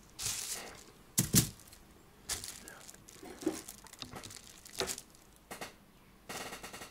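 Separate clicks and knocks of a brass clock movement and hand tools being handled and set down on a workbench, the loudest a pair of knocks a little over a second in, with a short run of rapid clicks near the end.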